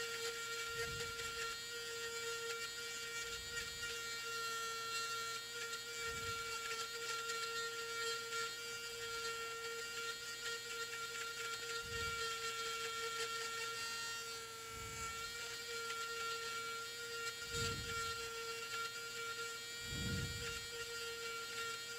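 A small electric motor running steadily with a constant whine, and soft low thumps every few seconds.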